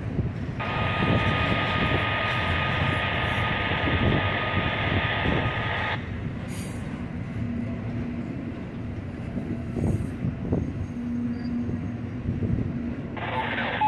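Double-stack intermodal freight train rolling past with a steady low rumble, its wheels squealing in high, steady tones for the first few seconds; the squeal stops about six seconds in and returns near the end.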